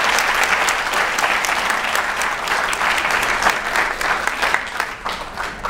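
Audience applauding, a dense patter of many hands clapping that tapers off near the end.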